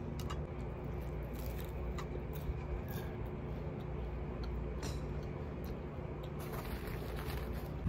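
Occasional light clicks of a fork against a food bowl while eating, over a steady low hum of room ambience.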